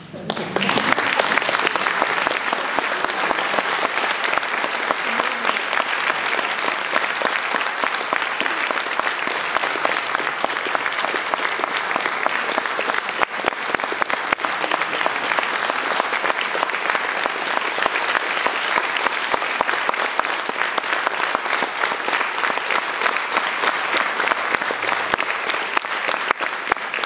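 Audience applauding at the end of a solo piano piece: the clapping starts suddenly and holds steady and dense throughout.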